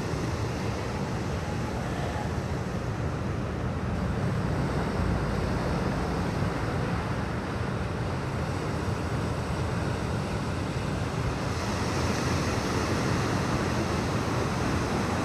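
Steady wind and ocean noise: a deep, even rumble with a hiss over it.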